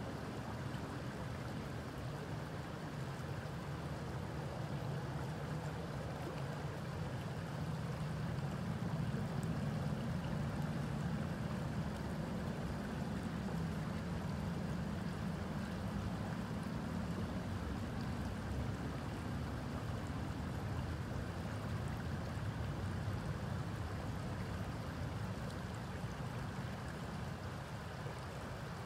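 Creek water flowing, a steady low rush that swells slightly in the middle.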